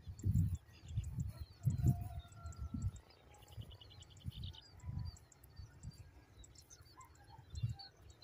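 Small birds chirping and twittering, with a quick trill of rapid chirps about three and a half seconds in, under louder irregular low thuds.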